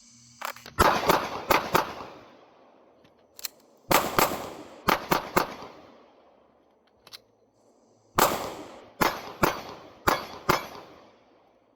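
Glock 19X 9mm pistol fired in three quick strings of about five shots each, with short pauses between strings for magazine changes.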